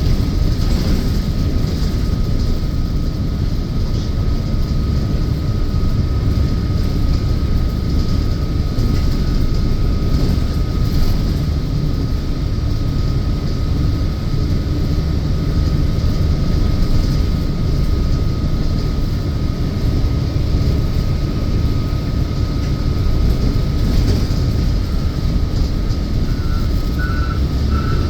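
City bus running, heard from inside the cabin: a steady low engine and road rumble with a thin constant whine over it. A few short beeps come near the end.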